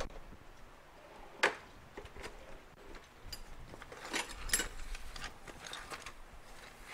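Hand tools and metal engine parts clicking and knocking on a workbench: scattered sharp clicks, the loudest about a second and a half in, with a quick cluster a little past halfway.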